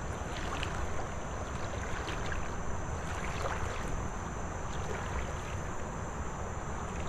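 Steady wind rumble on the microphone over the low wash of river water, with a few faint small splashes and ticks.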